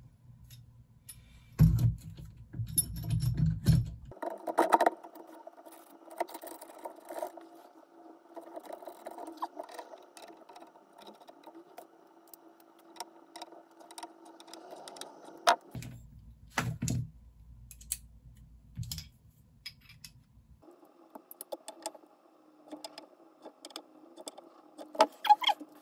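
Metal clinks, taps and rattles as a rifle scope and its rings are set onto the mounting rail and the ring screws are worked with a hex key. A cluster of sharper clicks comes near the end. A faint steady hum comes and goes underneath.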